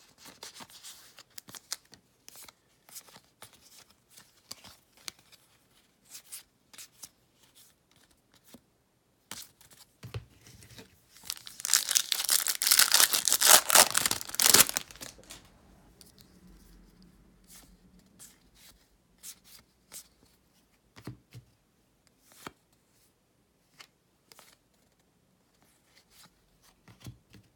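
Light scattered clicks of trading cards being handled, then about twelve seconds in a loud tearing and crinkling of a baseball card pack's wrapper being ripped open, lasting about three seconds.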